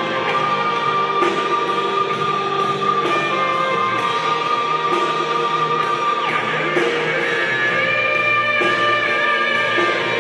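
Worship band music with guitars over a steady drum beat, with a pitch slide about six seconds in.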